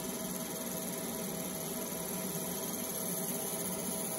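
30 W fibre laser engraver running as it marks a stainless steel plate: a steady electrical hum with an even hiss over it.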